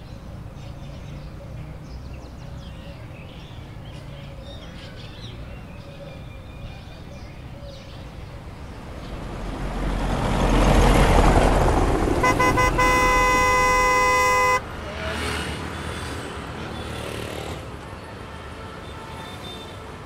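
Road traffic rumbling, with a vehicle rushing past loudest about halfway through. Then a vehicle horn gives a couple of short taps and a held blast of about two seconds that cuts off abruptly, before the traffic settles back to a lower rumble.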